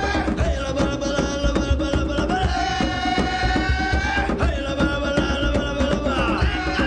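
Music: a fast hand-drum rhythm under a long held melody line that slides from note to note.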